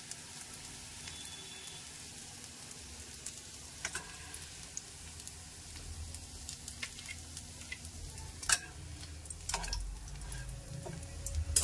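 Oil sizzling softly in a nonstick frying pan around vegetable seekh kababs as they are lifted out one by one, with a few sharp clicks and knocks against the pan.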